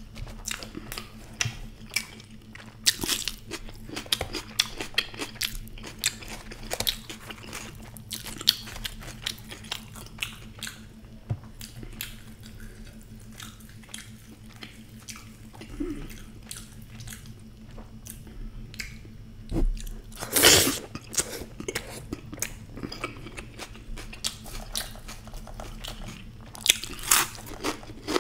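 Close-miked chewing and biting of deep-fried puri with dahi bhalla: wet mouth sounds and crisp crunches, with louder crunchy bites about 20 and 27 seconds in.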